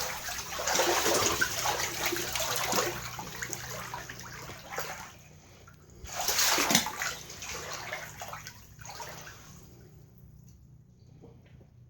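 Floodwater sloshing and splashing in surges, with a strong splash about six and a half seconds in, then dying away to quiet after about ten seconds.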